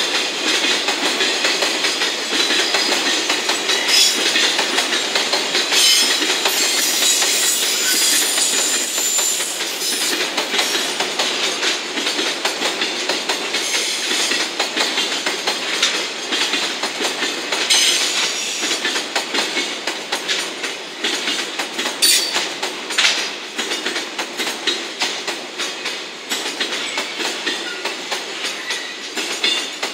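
Container flatcars of a slow-moving JR Freight container train rolling past, their wheels clacking over rail joints, with a high metallic squeal from the wheels at times.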